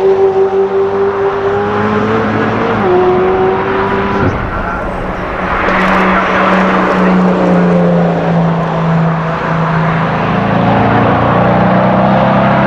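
Sports cars at speed on a race track. One engine holds a steady high note, steps once and cuts off after about four seconds. Another car's engine then comes in and holds its note, dipping and picking up again near the end.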